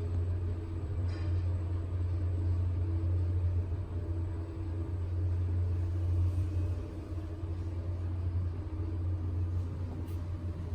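Steady low rumble of a vehicle in motion, easing off slightly from about seven seconds in.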